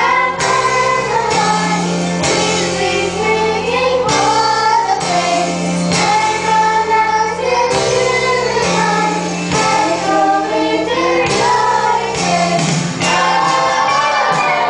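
Children's choir singing a Christmas song into handheld microphones, over instrumental accompaniment with sustained bass notes and a steady beat.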